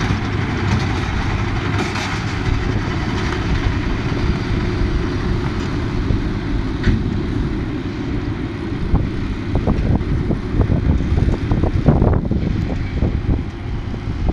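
A tractor pulling a Krone Comprima V150 XC round baler, the engine and baler running steadily. Scattered clicks and knocks come in the second half.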